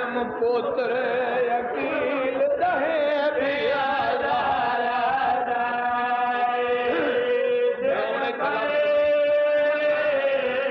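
A man chanting a mourning lament in a melodic, drawn-out voice: the zakir's sung recitation of the masaib, wavering and ornamented at first, then held on long steady notes in the second half.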